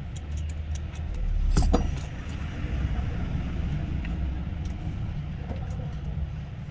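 Small clicks and taps of hand tools and parts on an iPhone being put back together, with one louder knock about a second and a half in, over a steady low background rumble.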